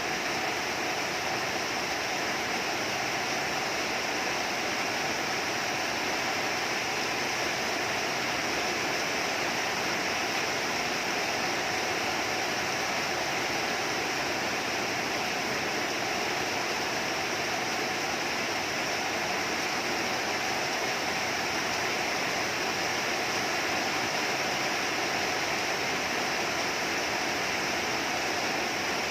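Steady rain falling, an even rushing hiss with no breaks or changes.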